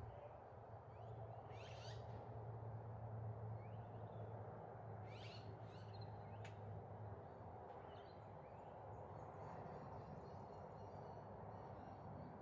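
Faint birds calling: a few short, high chirps that sweep quickly in pitch, with light twittering near the end. Under them run a steady low hum, which fades about seven seconds in, and a faint hiss.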